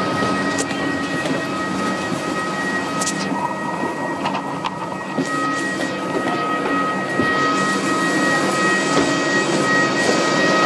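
Steady machinery drone inside an airport jet bridge, with two constant high-pitched whines over a low hum and a few light knocks.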